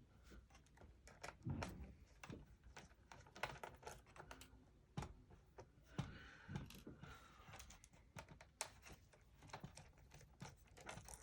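Faint, irregular clicks and taps of a small Phillips screwdriver working screws out of a Dell Latitude D630 laptop's plastic case, with light handling of the laptop.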